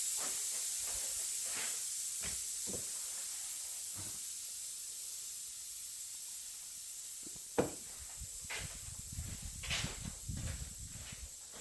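Steady high hiss that slowly fades, with scattered light clicks and knocks and a low rumble in the second half.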